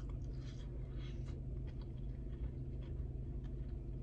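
Chewing a mouthful of lobster mac and cheese: soft, scattered mouth clicks and smacks, over a steady low hum inside a car.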